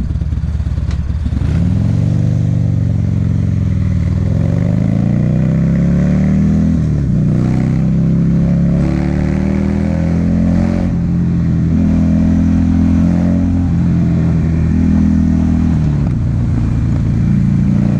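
2009 Buell XB1200SS's air-cooled V-twin running through a Jardine aftermarket exhaust, pulling away and accelerating through the gears: the pitch climbs, drops at each upshift, then holds steady at cruising speed. The engine is not yet warmed up.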